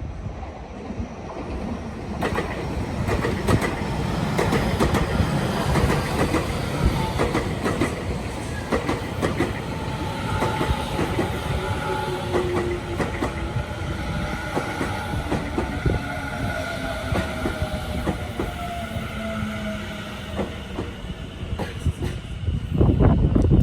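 Tobu line electric train running through the station, its wheels clacking over rail joints, with a whine that falls slowly in pitch.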